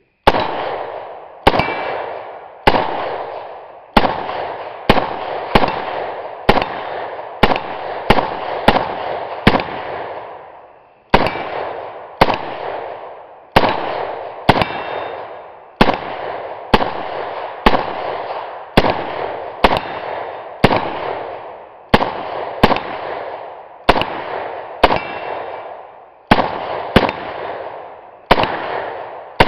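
Arsenal Bulgarian AK-74-pattern semi-automatic rifle in 5.45x39 firing Tula ammunition in a rapid string of single shots, about one a second, with a brief pause about ten seconds in. Each shot is followed by a long echo.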